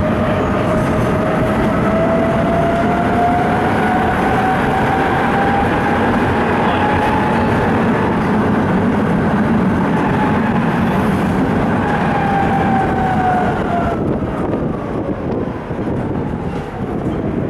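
Ganz articulated tram running, heard from inside the passenger car: a steady rumble with a whine that rises in pitch through the first half as the tram gathers speed. Near the end comes a shorter whine falling in pitch, then a quieter, more uneven run as it slows.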